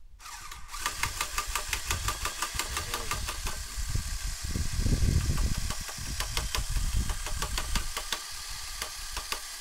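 A homemade centrifugal-drive cart running: a drill motor spins an eccentric rotor, and the wooden frame rattles and knocks rapidly over the motor's whine. A deep rumble builds to its loudest about halfway through. This shaking is the vibration that moves the cart along the board.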